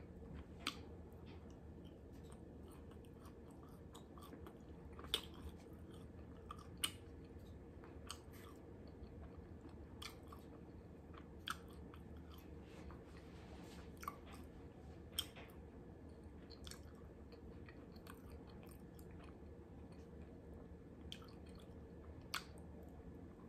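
Faint chewing and mouth sounds of a person eating Beijing beef and chow mein, with about a dozen short sharp clicks and smacks scattered through, over a steady low room hum.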